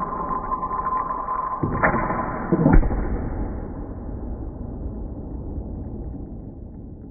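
A balloon bursting, heard slowed down: a sharp click, then about a second later a loud, deep pop that fades out slowly over several seconds.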